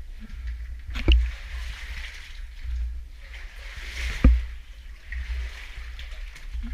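Water sloshing and splashing in surges as a caver moves through a cave stream, with two sharp knocks, about a second in and near the middle.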